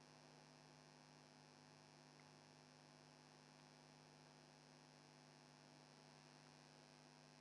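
Near silence: only a faint steady electrical hum, with no frying sizzle audible.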